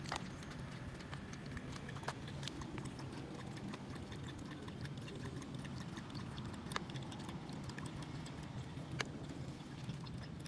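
French bulldog lapping water from the trough of a portable water bottle, with a few sharp clicks scattered through.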